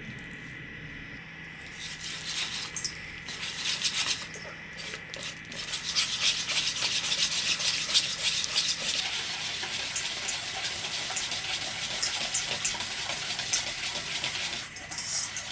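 Scratchy rubbing and scraping from baking preparation, a quick run of short strokes starting about two seconds in and going on steadily.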